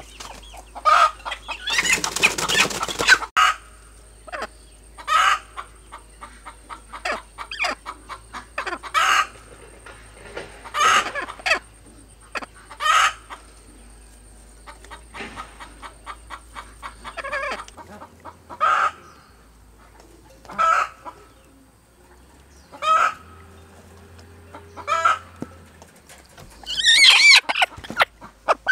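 Hen calling in short, loud squawks about every two seconds as she is lifted off her nest of eggs: a disturbed sitting hen protesting. A brief noisy rustle comes about two seconds in, and another near the end.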